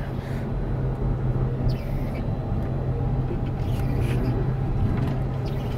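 Combine harvester engine running with a steady low drone.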